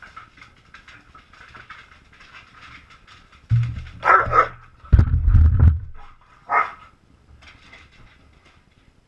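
Dogs play fighting, with barks about four seconds in and again about six and a half seconds in. Heavy thumps and bumps come between about three and a half and six seconds in, as a dog knocks into the camera.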